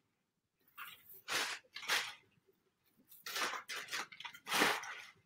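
Several short rustling handling noises as a tangled gold-tone chain headpiece is lifted and moved in the hands.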